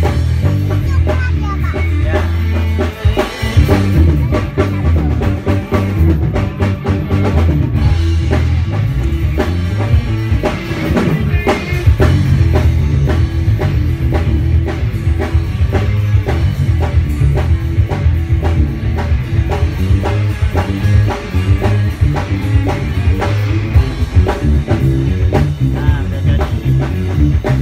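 Loud music with a drum kit keeping a steady beat, plus guitar and possibly voices.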